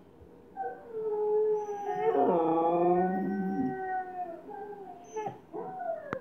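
Huskies howling: long, wavering howls that glide up and down in pitch and mostly fall away at the end of each, loudest about two seconds in. A short sharp click near the end.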